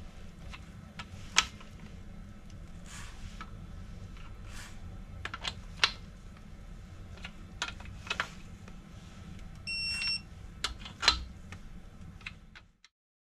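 Electronic torque wrench working the main bearing bolts of a BMW N55 bedplate to 20 N·m: scattered sharp ratchet clicks and metal taps, with a short electronic beep about ten seconds in as the wrench signals a bolt has reached its set torque. The sound cuts off suddenly near the end.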